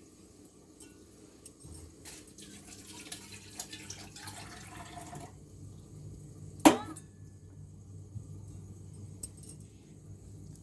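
Tableware handled while curry and rice are tasted: soft scraping and rustling against a plate, then one sharp ringing clink about two-thirds of the way through, over a faint steady hum.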